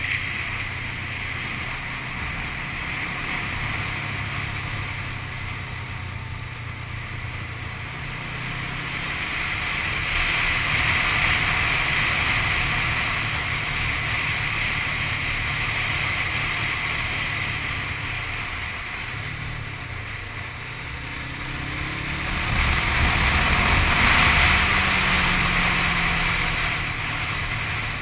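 Motorcycle engine running under way with wind rushing over the microphone. The engine note dips about two-thirds of the way through, then climbs as the bike accelerates, with the wind growing louder.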